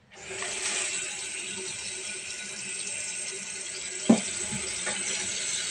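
Tap water running steadily into a stainless steel sink and splashing onto a plastic-wrapped foam tray of prawns, with one sharp knock about four seconds in.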